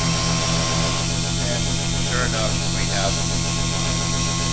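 Homemade CNC router running a cut: a loud, steady machine hum with a constant high whine.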